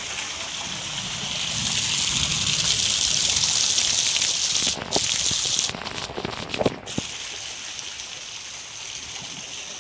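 Rain and running water: a steady hiss of falling rain with water gushing, loudest around the middle, broken by a few sharp clicks and knocks between about five and seven seconds in.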